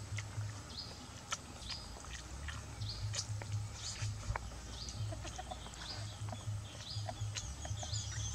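Bird calling: short high notes repeated over and over, roughly one or two a second, with scattered sharp clicks and a low uneven rumble underneath.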